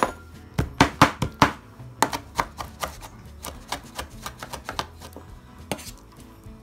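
Kitchen knife chopping soft pickled plum flesh on a plastic cutting board: quick, irregular knocks of the blade on the board, about three or four a second, loudest in the first couple of seconds.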